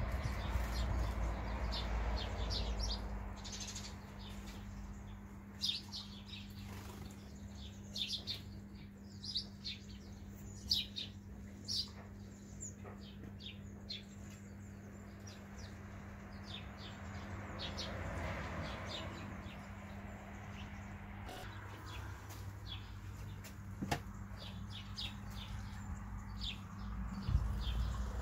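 Sparrows bathing in a shallow birdbath: their wings splash and flutter in the water, with frequent short chirps throughout. The splashing is heaviest at the start, about two-thirds of the way through, and near the end.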